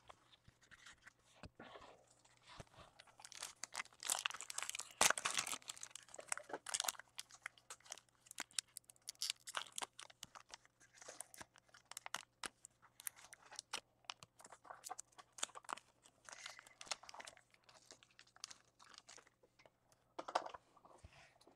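A foil trading-card pack being torn open and the cards handled and flicked through: soft crinkling and tearing with many quick paper clicks, busiest a few seconds in.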